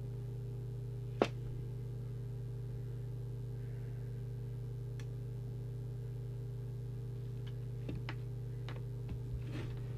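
Steady low electrical hum from the bench equipment, with one sharp click about a second in and a few faint ticks near the end.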